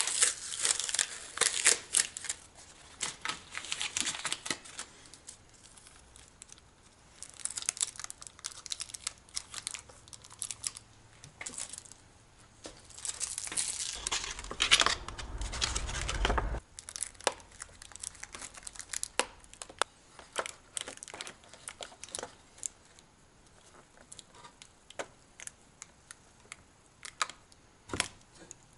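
Amber insulating tape being pulled off its roll and torn, with plastic crinkling, in irregular spurts. The longest and loudest bout comes about halfway through, with a low rumble of handling under its end.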